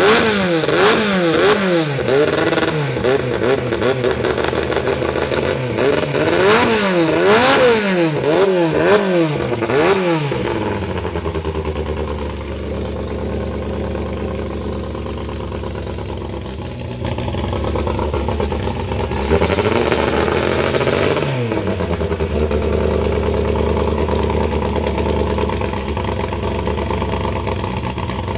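Racing longtail boat's engine being revved in quick repeated blips of the throttle, rising and falling again and again for about the first ten seconds, then settling to a steady idle, with one more rev about twenty seconds in.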